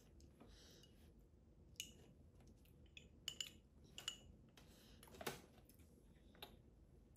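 Metal spoon clinking and scraping against a small glass bowl as food is scooped: a few faint, sharp clinks spread over several seconds.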